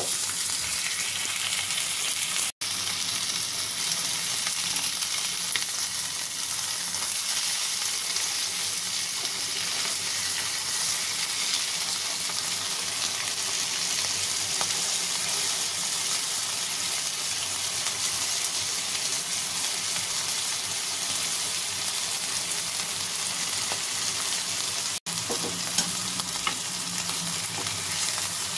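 Boneless chicken thighs sizzling in hot cooking oil with ginger and garlic in a ridged grill pan: a steady frying hiss, broken twice by a momentary dropout.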